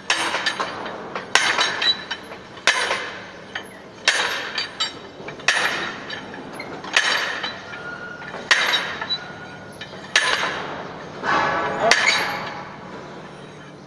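Standard Penetration Test drop hammer falling onto the steel anvil of the drill rod: a sharp metallic clank with a brief ring, about nine blows, one every second and a half or so. Each blow drives the split-spoon sampler into the soil, and the blows are counted for the SPT N-value.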